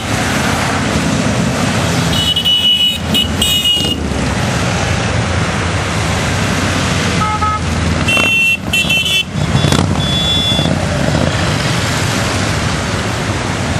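A stream of motorcycles passing close by, their engines running steadily. Horns toot in short bursts about two seconds in and again around eight to ten seconds in.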